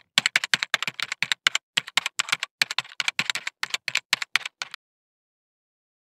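Typing sound effect: a fast, uneven run of key clicks, about six a second, laid under a title that appears letter by letter. The clicks stop abruptly a little before five seconds in.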